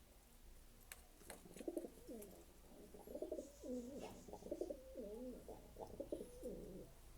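Domestic pigeon cooing in a long, wavering run of rolling coos lasting about five seconds, with a few sharp clicks just before it.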